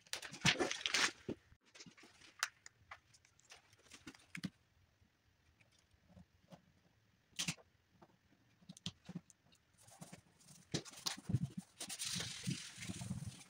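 Hands handling decal backing paper and rubbing a decal onto a snowmobile's painted hood: irregular paper rustles, scrapes and light taps, with a longer stretch of steady rubbing near the end.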